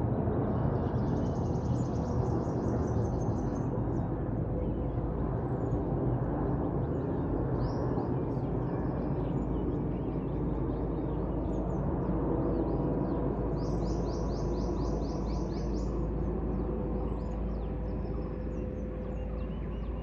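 Distant, steady rumble of a Boeing 747-8F freighter's four GEnx jet engines on approach with gear down, easing slightly toward the end. Small birds chirp throughout and twice give a rapid, high trill.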